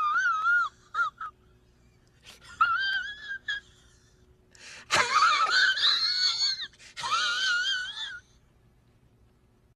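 Wheezing laugh sound effect: a squeaky, high-pitched wheeze in several short bursts whose pitch wavers up and down.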